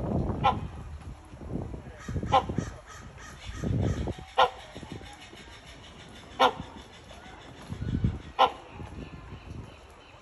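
Great hornbill giving short, loud barking calls, five in all, about one every two seconds.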